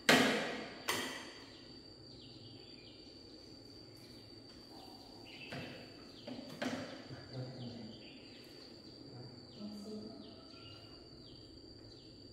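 Two sharp knocks about a second apart, the first the loudest, then a steady high insect drone with short chirps repeating every half second or so.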